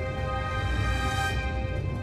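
Background music: sustained held chords over a steady low bass.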